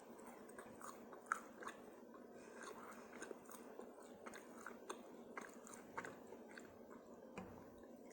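Faint, close-up chewing of a mouthful of pizza, with many small, irregular mouth clicks and crunches.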